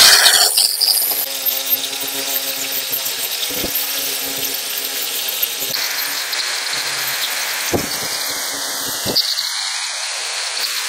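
A power tool running steadily with a noisy grinding hiss, with a few short knocks.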